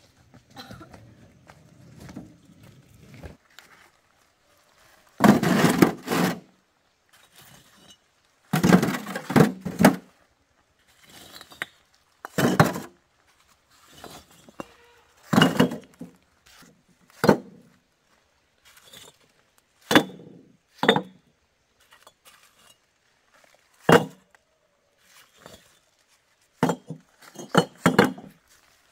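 Irregular knocks and clinks of hard objects being handled and set down, some single and some in short clattering clusters.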